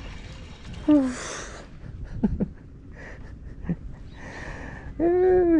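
A person's breathy gasps and short vocal sounds, ending in a louder drawn-out voiced exclamation near the end.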